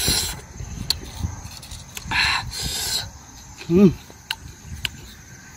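A man eating sour bilimbi fruit with chili salt: scattered small clicks of chewing, and two hissing sucks of breath about two seconds in. Just before four seconds comes a short call that rises and falls in pitch.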